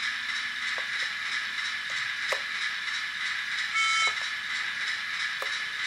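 Hornby OO gauge Class 08 diesel shunter model playing its sound-decoder engine sound through its small speaker, running steadily, with a short horn blast about four seconds in and a few light clicks.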